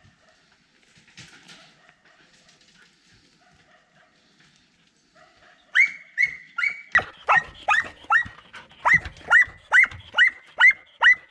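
A search-and-rescue dog barks repeatedly, about fourteen sharp barks at two to three a second, starting about six seconds in after a few seconds of faint rustling. This is the dog's alert bark at the hidden person's spot in the rubble, signalling a find.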